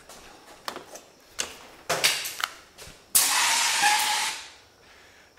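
A few light knocks, then a sudden loud hiss about three seconds in that holds for about a second and fades away.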